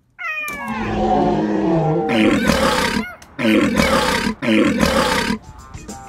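A loud monster roar: a falling screech that opens into a long rasping roar, followed by two shorter roars.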